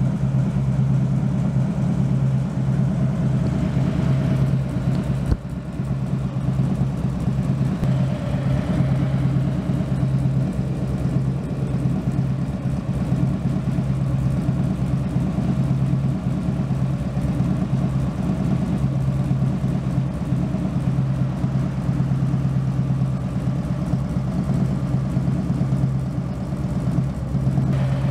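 2011 Harley-Davidson Road King's V-twin engine idling steadily with the booster tuning unit fitted. Its exhaust thump is clearly heard.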